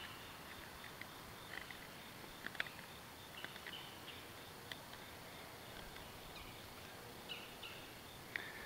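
Faint outdoor ambience with a few soft clicks and scrapes of a knife blade shaving a curl into a fatwood stick, the loudest click about two and a half seconds in, with occasional short bird chirps.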